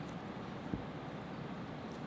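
Steady low background rumble of room noise, with one faint soft knock about three-quarters of a second in.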